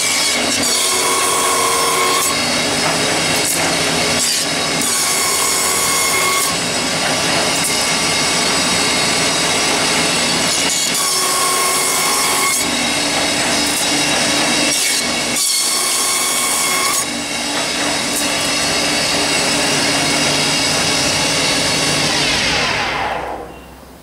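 WLS-1 wooden stick slicer running, its cutter heads shaping wood strips into round BBQ sticks: a loud, steady machine and cutting noise with a higher tone that comes and goes several times. Near the end the sound winds down, falling in pitch, and stops.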